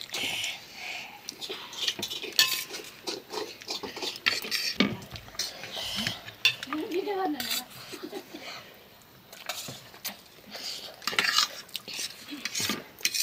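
Metal fork clinking and scraping against a plate as noodles are eaten, in short, irregular clicks.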